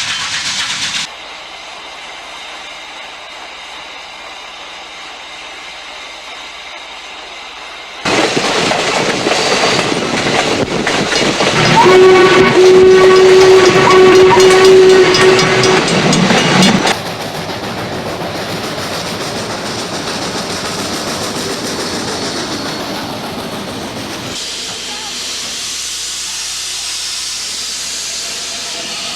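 Steam locomotive sound effects spliced together: hissing steam and a running train, with the sound changing abruptly several times, and a steam whistle held for about four seconds around the middle during the loudest stretch.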